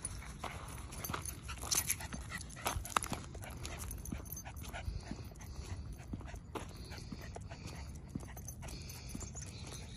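Small dog's sounds among irregular crunching steps on snow and a paved path, over a steady low rumble.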